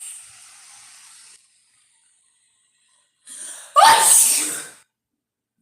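A sharp in-breath about three seconds in, then one loud sneeze that dies away within a second.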